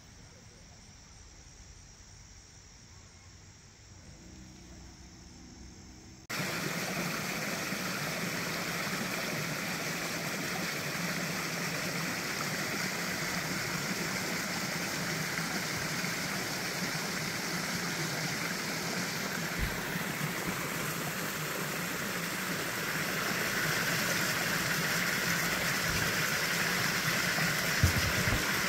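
A small rocky creek: a steady rush of running water that starts abruptly about six seconds in and grows slightly louder near the end. Before it there is a quiet stretch with a faint, thin insect sound.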